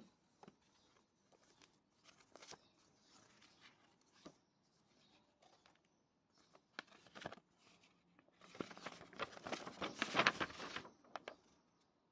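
Printed paper sheets handled and unfolded: scattered soft rustles and crinkles, then a longer run of paper crackling from about eight and a half seconds in as a large folded sheet is opened out.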